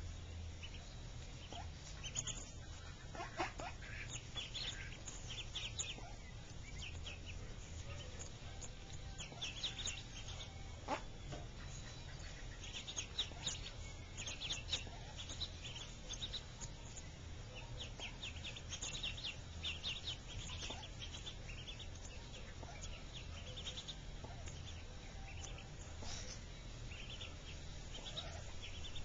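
Mallard ducklings peeping, many short high cheeps in quick runs that keep coming, over a steady low hum.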